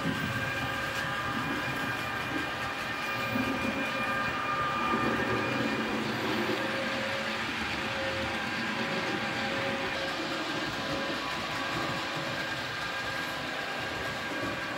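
Model trains running on the layout's track: a steady whine of several held tones over the rolling noise of small wheels on the rails.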